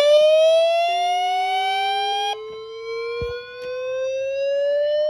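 Siren rising in pitch like a warning siren winding up, with many overtones. A second rising wail starts about a second in and climbs more slowly, and the first cuts off abruptly about two seconds in. A fainter steady tone sounds underneath for a couple of seconds in the middle.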